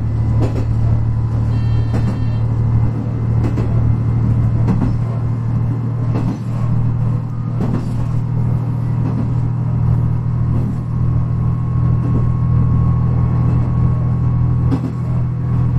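KiHa 121 diesel railcar under way, heard from the cab: a steady low engine drone with the wheels clacking over rail joints at irregular intervals of about a second or so.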